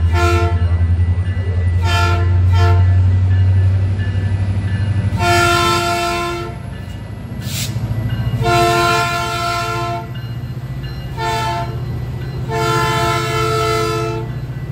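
Metrolink diesel locomotive sounding its multi-note horn as it passes close by: two short blasts about two seconds in, then long, long, short, long, the grade-crossing signal. Under the horn, the locomotive's diesel engine runs with a steady low rumble.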